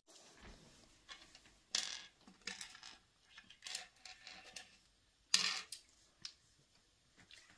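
Small game counters dropped and picked up in the wooden cups of a sungka board: scattered short clicks and rattles at uneven intervals, the loudest about five and a half seconds in.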